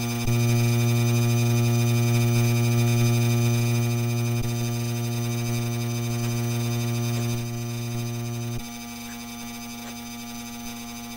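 Ceiling fan motor giving off a loud, steady electrical buzz, a buzz this worn fan has developed. Clicks of the speed switch come three times: the buzz steps louder just after the start, eases a little about four seconds in, and drops sharply past the eight-second mark.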